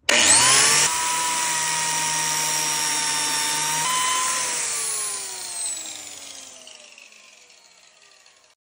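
Electric biscuit joiner switched on, its motor whining up to speed, running steadily while it plunges a slot into the end of a pine board, then switched off and winding down with a falling whine that fades out over about four seconds.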